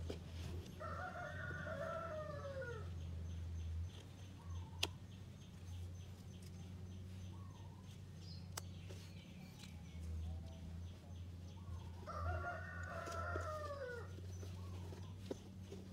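A rooster crowing twice, each crow about two seconds long and dropping in pitch at the end, the second about eleven seconds after the first. A sharp click about five seconds in, over a steady low hum.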